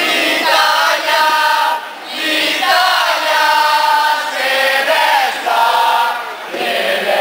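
A group of young people singing together in unison without accompaniment, in phrases with short breaks about two seconds in and near the end.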